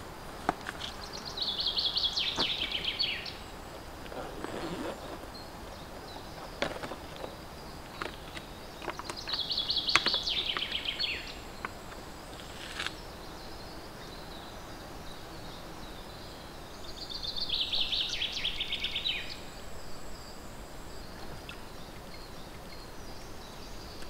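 A songbird sings a short, fast trill that falls in pitch, three times about eight seconds apart. Behind it is a faint steady high insect hum, with a few light clicks and rustles from a plastic water bottle and gear being handled.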